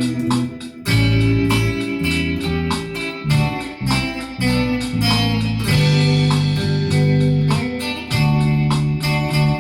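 Instrumental music led by guitar, with plucked and strummed guitar over a steady bass line.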